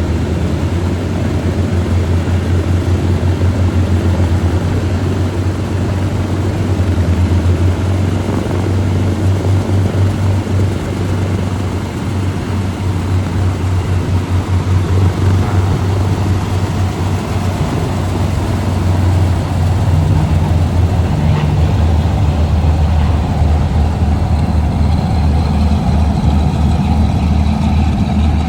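Twin Allison V-12 piston engines of a Lockheed P-38 Lightning running with a steady, pulsing low drone.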